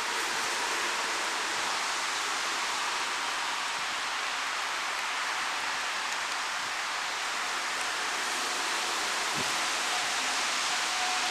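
Steady hiss of falling rain. A faint steady tone comes in near the end.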